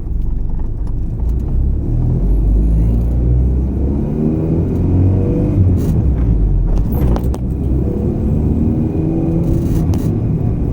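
Honda H22 four-cylinder engine of an H2B-swapped EK Civic driving, its pitch climbing twice under acceleration over a steady low rumble, with a few short knocks.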